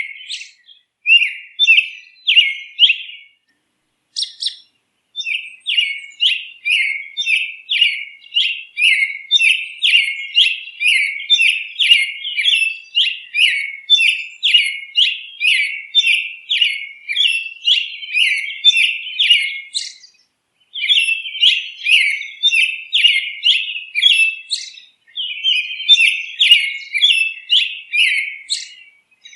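A bird chirping, short rapid chirps about two a second in long runs, with brief pauses about four seconds in and again about twenty seconds in.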